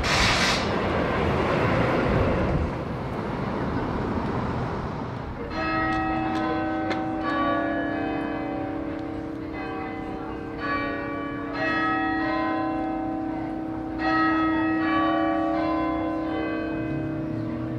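Traffic noise from a lorry passing in the street, fading over the first few seconds. Then, from about five seconds in, church bells ring: several bells of a ring of ten are struck one after another in repeating sequences, their tones hanging on and overlapping.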